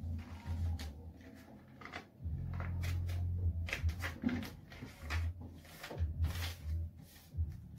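A sheet of paper being folded and creased by hand on a tabletop, giving a run of short crinkles and rustles, with a low hum that comes and goes underneath.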